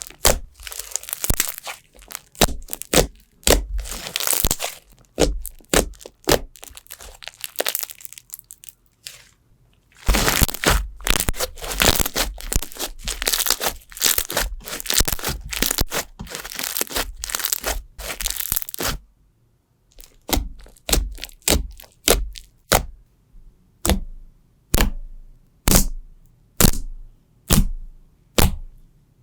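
Slime being squeezed and poked, making sharp crackling pops. It comes in two dense runs with short pauses between them, then turns into separate single pops about once a second.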